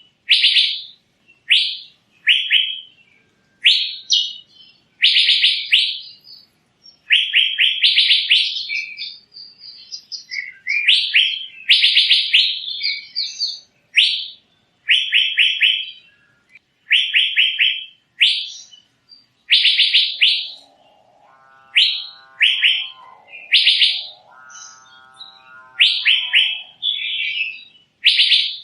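Asian fairy-bluebird (cucak biru) calling: short phrases of rapid notes, repeated about every second with brief gaps. A lower, fainter call with several even tones comes in twice near two-thirds of the way through.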